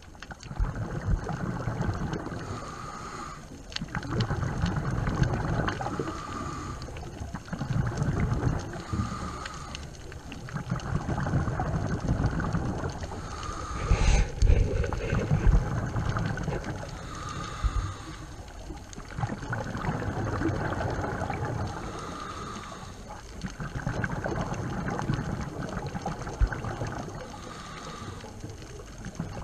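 Scuba diver breathing through a regulator underwater: a hiss on each inhale, then the rumble and gurgle of exhaled bubbles, repeating about every four seconds.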